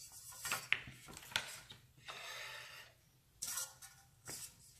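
Round metal cake pan being handled over a countertop: faint scrapes and a few light knocks, with a soft rubbing hiss about halfway through.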